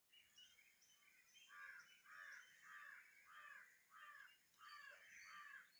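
Faint bird calls: seven short harsh caws in a row, about two thirds of a second apart, starting about a second and a half in.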